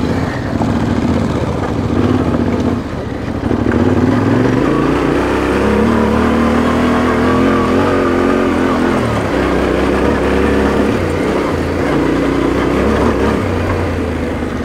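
Trail motorcycle engine running under way on a dirt track, the revs rising about four seconds in, holding, then dropping briefly around nine to ten seconds before picking up again.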